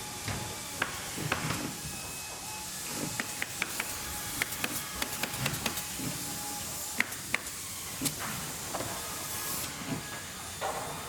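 Factory machinery ambience: a steady hiss under irregular clicks and knocks of working machines, with a few faint held tones.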